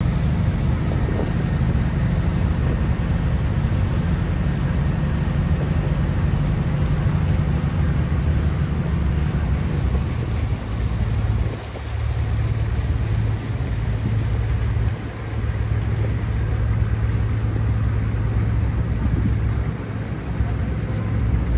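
A ferry's engines running with a steady low drone, with wind buffeting the microphone over it.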